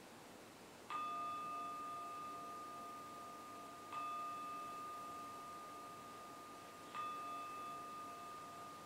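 A meditation bell struck three times, about three seconds apart, each stroke ringing on in a clear steady tone and slowly fading into the next, closing the meditation session.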